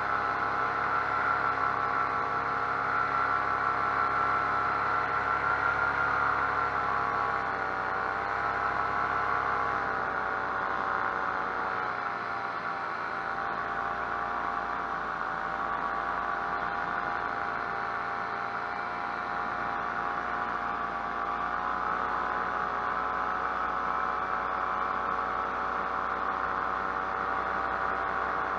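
Paramotor engine and propeller running steadily in flight at cruising throttle, the pitch wavering and dipping slightly a few times.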